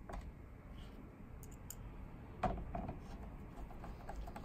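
Faint clicks and taps of a screwdriver driving screws into the underside of a TiVo Bolt's plastic case, with one louder knock about two and a half seconds in.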